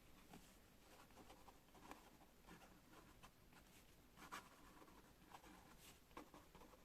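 Pen scratching faintly on paper in irregular handwriting strokes, with small ticks as the pen lifts and touches down.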